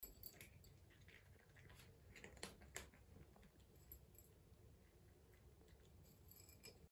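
Near silence with soft, scattered clicks of a cat eating from a small dish, a couple of them a little louder between two and three seconds in.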